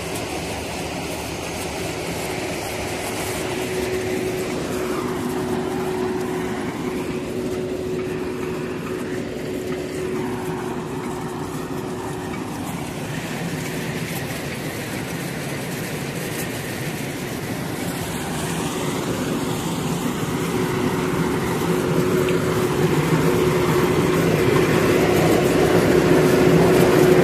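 Truck-mounted borewell drilling rig running steadily: a constant engine hum that grows louder near the end.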